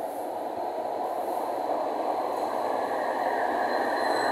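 Tram approaching through the tunnel and entering an underground station: a steady rumble of wheels on rail that grows louder throughout, with a thin high tone joining in near the end.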